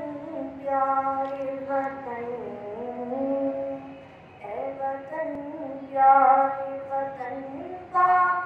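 A teenage boy singing an Urdu patriotic song solo into a microphone, in long held notes that slide from pitch to pitch, with a short breath pause about four seconds in.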